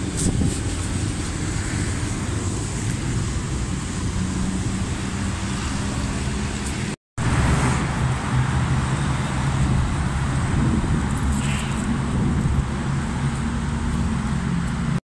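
Steady hum of vehicle engines and road traffic, with a low engine drone underneath; the sound drops out for a moment about seven seconds in.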